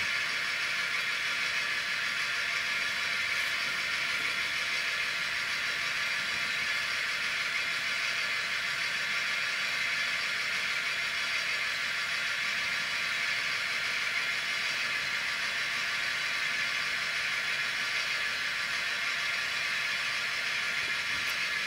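Sound decoder of a model DR class 118 diesel locomotive playing a steady diesel engine running sound through its small onboard speaker, thin with little bass.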